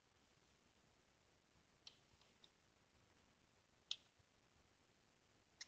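A few faint computer keyboard key clicks, about five isolated taps with the loudest about four seconds in, over near silence.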